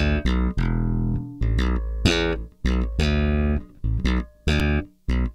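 Slap bass playing a funky, choppy line for a city pop track: deep thumbed low notes with sharp popped notes between them, broken by short gaps.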